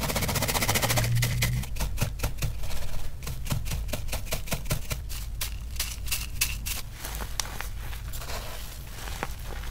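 Crumbled reformed gym chalk (cornstarch and baking soda) worked by hand in a mesh sieve. For about the first second there is a dense scratchy hiss of the powder being sifted, then a long run of sharp, crisp crunches and crackles as the chunks are pressed and crushed against the mesh.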